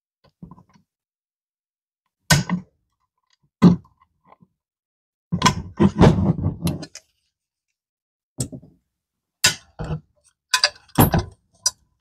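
Sharp metal clicks and knocks in short irregular clusters: a retainer being pushed down over the washer and roller bearing on a 1966 Mustang clutch pedal's pivot, and the steel pedal being handled.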